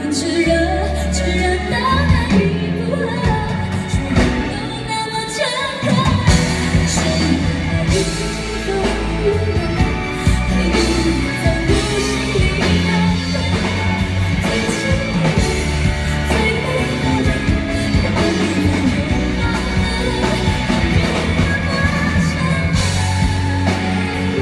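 A female singer sings a Mandarin pop ballad live over a band. The accompaniment grows fuller and louder about six seconds in.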